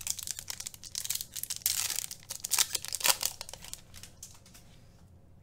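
Plastic wrapper of a Topps Finest trading-card pack being torn open and crinkled by hand: a rapid, irregular run of crackles that thins out after about three seconds.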